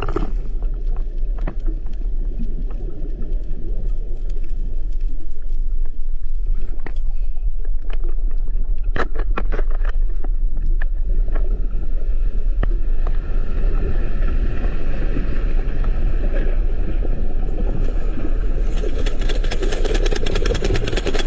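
Underwater earthquake: a loud, deep, steady rumble with scattered sharp clicks, turning to a denser crackle near the end, as the seabed shakes around divers.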